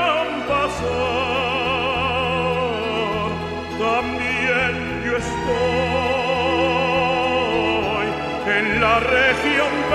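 Background music: an operatic voice singing with wide vibrato over orchestral accompaniment.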